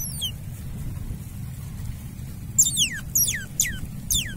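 Otter pup calling in high-pitched squeaks that drop steeply in pitch: one short squeak at the start, then four quick ones in a row from about two and a half seconds in. A steady low rumble runs underneath.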